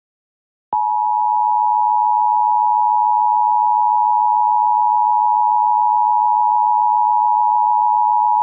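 Emergency Alert System attention signal: two steady sine tones near 853 and 960 Hz sounding together as one harsh, continuous alert tone. It starts suddenly about three-quarters of a second in, after a brief silence, and holds steady at full level, carried over a low-bitrate HD Radio feed.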